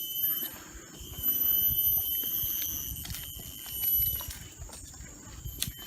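Tropical forest insects shrilling steadily in several high, piercing tones, louder for a stretch about a second in, over a low rumble.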